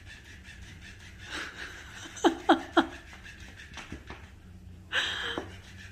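A person laughing: three quick, loud 'ha's falling in pitch about two seconds in, then a breathy laugh near the end.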